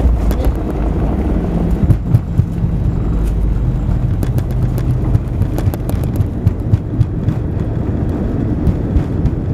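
Cabin noise of an Airbus A319 rolling out on the runway after landing: a steady low rumble with frequent knocks and rattles from the landing gear running over the runway surface, and a low hum that steps down in pitch.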